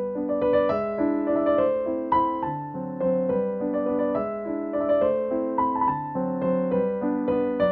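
Background piano music: a steady stream of soft, struck notes in a calm melody over chords.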